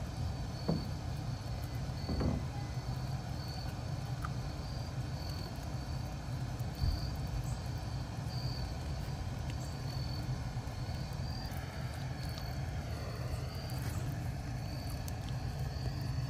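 Outdoor ambience: a steady low rumble with faint insect chirps repeating about once a second, and a few soft knocks.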